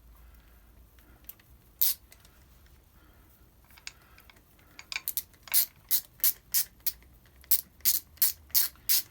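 Socket ratchet clicking in short, quick bursts as the clutch cover bolts are run in until they just start to bite; a single click comes about two seconds in, and the steady run of bursts starts about five seconds in.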